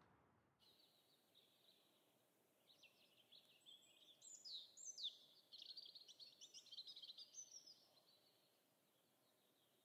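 Faint birdsong: high chirps and trills with a few short falling whistles, busiest from about three to eight seconds in, over a low hiss.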